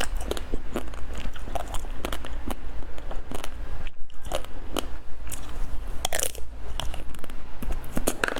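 Biting into and chewing a Magnum ice cream bar, close to the microphone: its hard chocolate shell cracks and crunches in many quick, irregular snaps, with a short pause about four seconds in.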